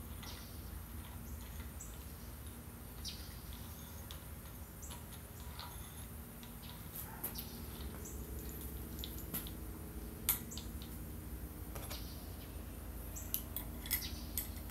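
Faint, scattered clicks and light metal clinks of hand tools and grinder parts being handled, over a low steady hum; the sharpest click comes about ten seconds in, with a few more near the end.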